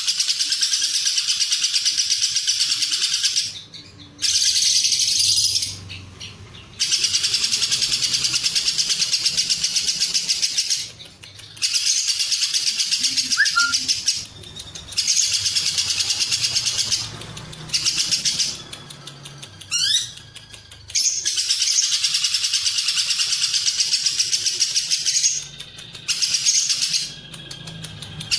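Lovebird singing its ngekek: long bouts of rapid, shrill chattering, each lasting a few seconds, broken by short pauses.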